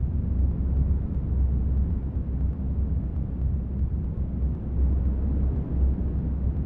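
Low, steady rumbling drone that stays heavy at the bottom without change or breaks.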